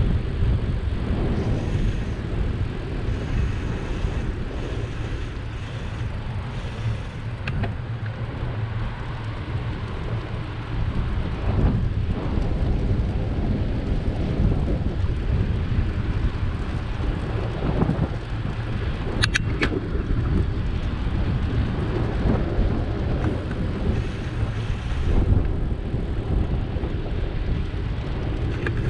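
Wind buffeting the microphone of a bike-mounted camera while cycling along town streets: a steady, loud low rumble with road noise underneath. Two short sharp ticks come about two-thirds of the way through.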